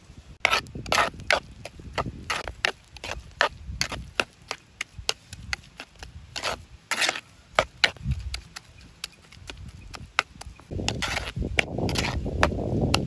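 A ladle tapping and scraping against a clay cooking pot as chopped greens are mixed with fresh grated coconut: a quick, irregular run of sharp taps, then a steadier scraping near the end.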